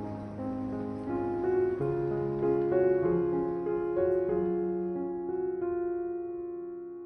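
Soft background piano music, slow notes and chords that ring out and fade toward the end.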